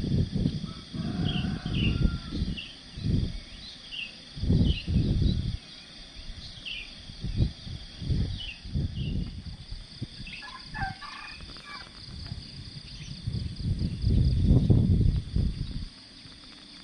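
Gusty wind rumbling on the microphone, with small birds chirping again and again and a short bird call about eleven seconds in.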